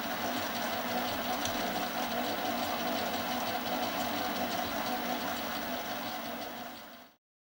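SIEG SC4 mini lathe running, its motor and gear train making a steady hum and whirr; it fades out near the end.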